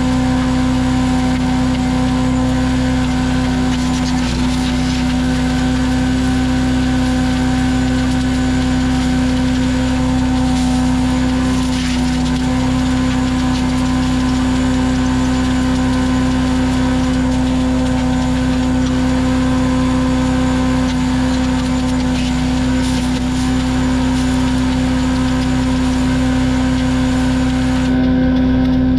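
Small gasoline engine of a wood chipper/shredder running steadily at constant speed, with a few brief sharp sounds over the drone.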